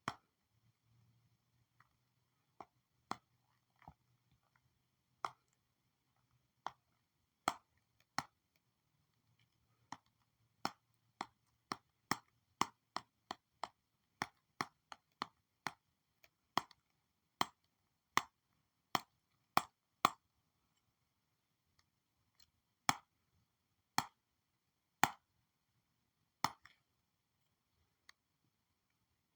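Pen stylus tapping on a digital drawing tablet: a string of sharp, separate clicks. They come irregularly at first, quicken to two or three a second in the middle, then space out again.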